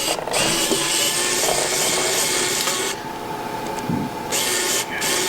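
A small tool scraping and prying against the inside of an opened iPhone 5, working a section of the board loose: one long rasping stroke of about three seconds, then a shorter one near the end.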